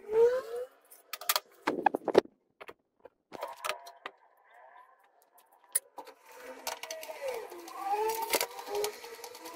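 Sheet-steel computer case being handled: scattered sharp metallic clinks and knocks, with a wavering tone in the second half.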